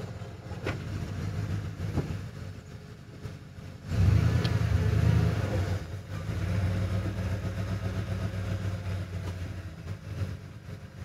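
Ford F-series pickup truck engine under load dragging a chicken coop. It runs low and steady, picks up sharply in revs and loudness about four seconds in, then settles into a steady pull.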